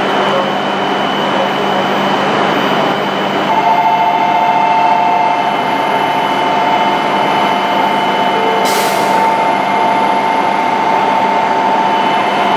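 Hokuriku Shinkansen E7/W7-series train standing at the platform, with a steady hum and a held two-note tone that sets in about three seconds in. A short sharp hiss of air comes near nine seconds in.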